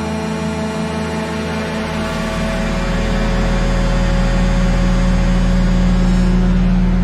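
Dense electronic drone: a deep, loud hum with a regular pulsing in the low end and layered steady tones above it, slowly swelling.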